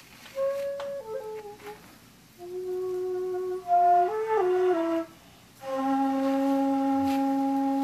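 Background music: a slow melody on a flute-like wind instrument, in long held notes that step up and down in pitch. It settles on a long low held note from about two-thirds of the way through.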